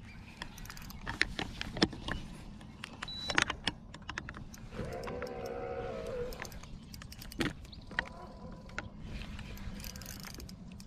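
Scattered light clicks and knocks of fishing gear being handled in a kayak, with a fabric sleeve rubbing over the camera's microphone. A short droning tone sounds for about a second and a half, about five seconds in.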